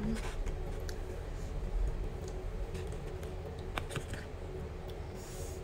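Metal spoon scooping rice and tapping against a plastic takeaway container, a few scattered soft clicks over a faint steady hum.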